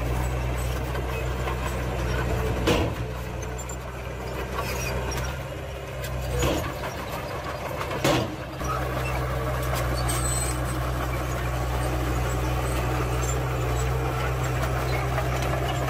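Diesel dump truck engine running steadily as the hydraulic hoist tips the loaded bed up to dump soil. A few short knocks in the first half.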